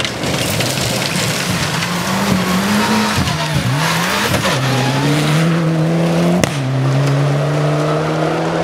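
Mitsubishi Lancer Evolution rally car's turbocharged four-cylinder engine at high revs as it slides through a loose gravel corner, with gravel spraying from the tyres. The engine note dips and swoops partway through, then climbs steadily as the car pulls away hard.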